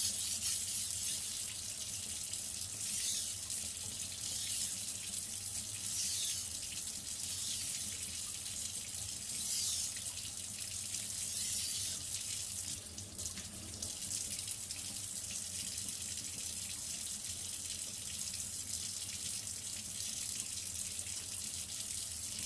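Steel knife edge scraping against a wet whetstone in repeated sharpening strokes: a continuous gritty hiss with a few louder swells and a short lull about halfway through.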